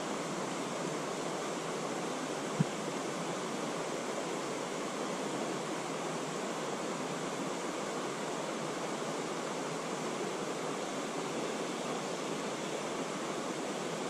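Steady rush of a shallow mountain stream flowing over rocky riffles, with one brief low thump about two and a half seconds in.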